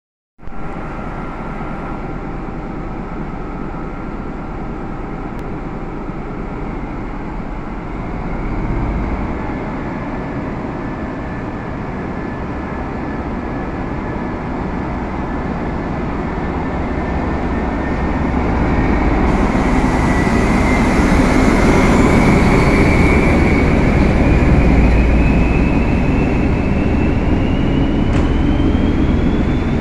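ČD class 754 "Nurek" diesel-electric locomotive pulling a passenger train out of the station, its engine running under load and a whine rising steadily in pitch as the train gathers speed. In the second half the rumble of the carriages rolling past grows louder.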